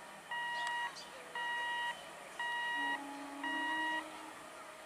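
Electronic level-crossing warning buzzer beeping in an even on-off pattern, about one steady-pitched beep a second; it stops about four seconds in as the crossing opens to road traffic.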